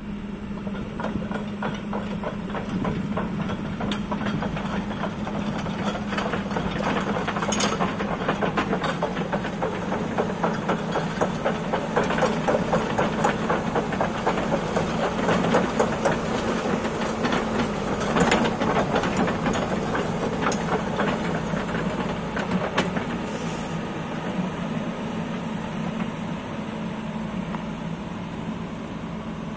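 A 2017 JCB JS145 LC tracked excavator's 81 kW diesel engine running with a steady drone, under a busy, fast clatter as the machine moves and works, loudest around the middle.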